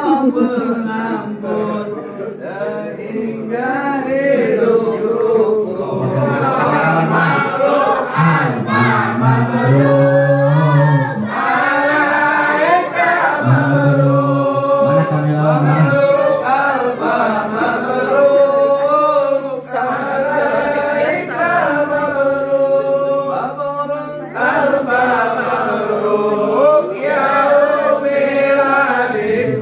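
A group of voices singing together, unaccompanied, holding long notes.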